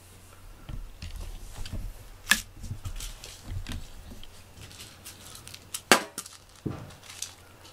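A toy mouse on a cat-teaser wand is being jerked about and knocks against the floor mat and nearby things: irregular light taps and soft thumps, with two sharp clacks, one about two seconds in and one about six seconds in.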